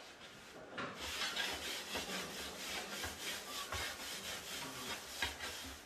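Irregular scraping and rubbing strokes, starting about a second in and stopping shortly before the end.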